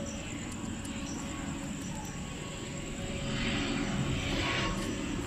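Airplane flying over, a low rumble growing louder over the last couple of seconds. A few cricket chirps sound faintly in the first second or two.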